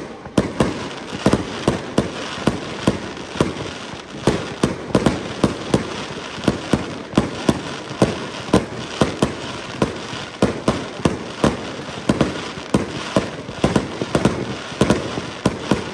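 Fireworks display: aerial shells bursting in a rapid string of sharp bangs, about three a second, over a continuous crackle.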